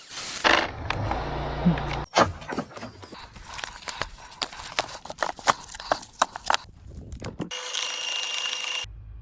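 Sounds of cordless tree-work tools, joined by abrupt cuts. For about two seconds a low steady motor hum runs with noise. Then comes a run of sharp, uneven knocks and cracks, like wood being struck and breaking. Near the end there is a short steady high whine of an electric motor.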